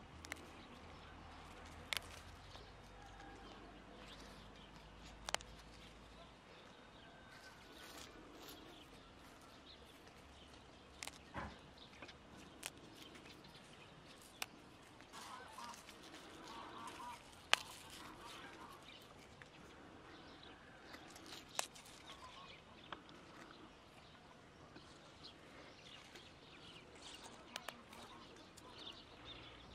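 Dandelion leaves and stems being torn by hand and laid on a plate: a dozen or so sharp snaps at irregular intervals, with soft leafy rustling between them.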